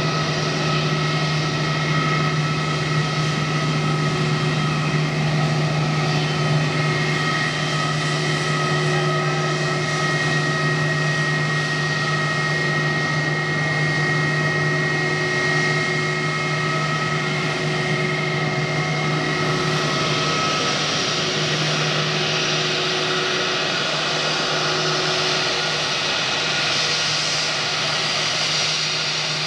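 Airbus A320-232's two IAE V2500 turbofans at taxi power: a steady jet whine over a low hum. About two-thirds of the way through, the high whine tones fade and a hissier rush grows as the aircraft turns toward the listener.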